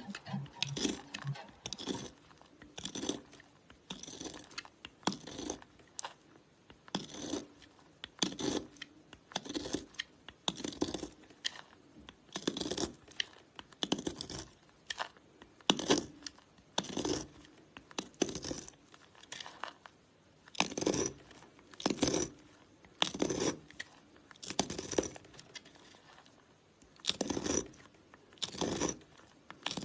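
A bar of soap being cut with a blade, one short cut after another, about one a second.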